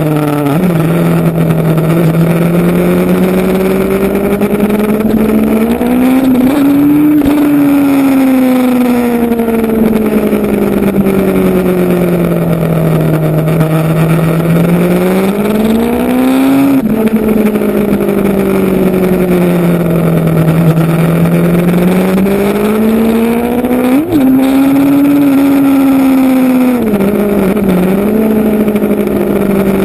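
Motorcycle engine running while under way, loud and steady. Its pitch slowly rises and falls as the revs change, climbing at about 6, 16 and 24 seconds in and easing back down in between.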